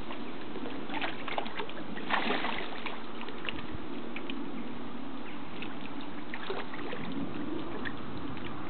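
Domestic ducks splashing and dabbling in pond water, some upending to feed, with small splashes about one and two seconds in over a steady rushing water background.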